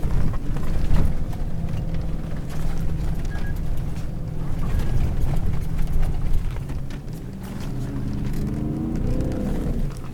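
Seven-seat four-wheel-drive Toyota driving over desert sand, its engine and drivetrain a steady low hum inside the cabin, the engine note climbing in pitch near the end as it revs.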